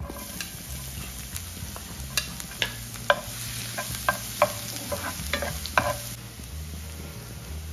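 Chopped garlic sizzling in hot oil in a granite-coated frying pan as a wooden spatula stirs it, with a series of sharp knocks of the spatula against the pan. The sizzle eases about six seconds in.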